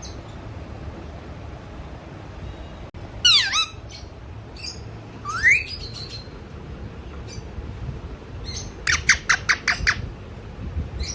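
Pet parrot giving sleepy squawks and chirps. There is a quick cluster of falling calls about three seconds in, a single rising squeak around five seconds, and a fast run of about seven short chirps near the end.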